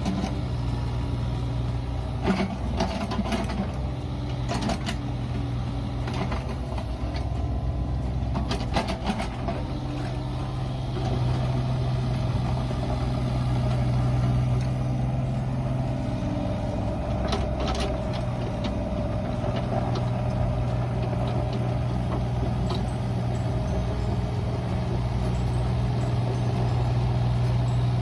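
Mini excavator engine running steadily, with a few groups of sharp knocks and clanks a couple of seconds in, around eight seconds and again around seventeen seconds.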